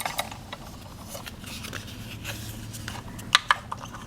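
Light clicks and taps of small plastic toy pieces being handled, with two sharper clacks about three and a half seconds in.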